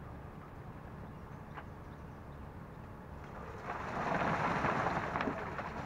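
Steady low engine hum, then about three and a half seconds in a louder gritty rushing noise with scattered clicks for about two seconds, as wet concrete is tipped and poured.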